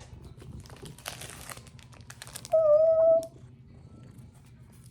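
Plastic mailing packaging crinkling and crackling as it is handled and opened, then a cat gives one short, steady-pitched meow about two and a half seconds in, the loudest sound.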